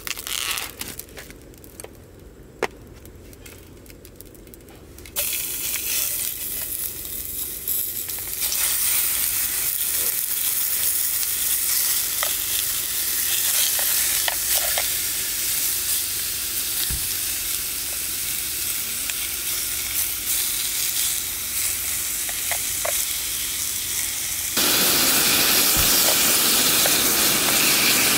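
Meat frying in a small pan on a gas-canister camping stove: a few light clicks of handling, then a sudden sizzle about five seconds in as the meat goes into the hot pan, growing louder soon after. Near the end the sizzle steps up to a louder, steadier hiss.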